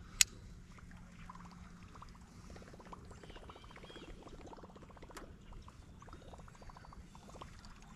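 A sharp click just after the cast, then a fishing reel cranked on the retrieve: a fast, even run of soft ticks for several seconds. The reel is a high-speed reel used for working a Choppo topwater bait.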